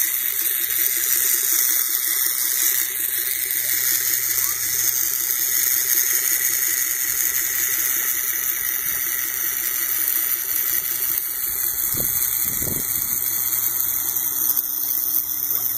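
Steady rush of running water with a low hum, from a swimming pool's circulation pump and return jet. Two soft low thumps come about twelve seconds in.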